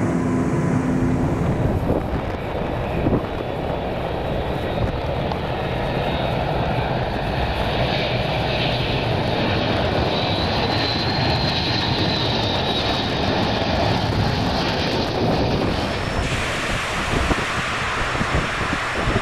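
Jet engines of a large four-engine transport running loud through a landing on an ice runway, with a high turbine whine in the middle. About three-quarters of the way through it changes to a brighter, hissier rush as a Hercules makes a rocket-assisted takeoff.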